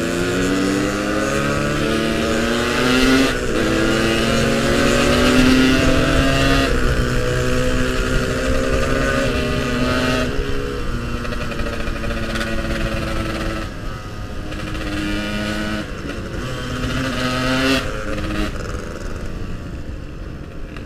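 Yamaha RX-King two-stroke single-cylinder motorcycle engine under way, its pitch climbing as it accelerates and then dropping at each gear change or throttle lift, several times over.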